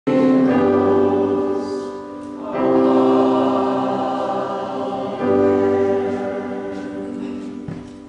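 A choir singing slow, held chords in three long phrases, the last dying away near the end.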